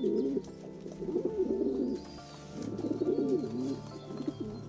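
A bird cooing in repeated low, warbling phrases about a second long, over background music.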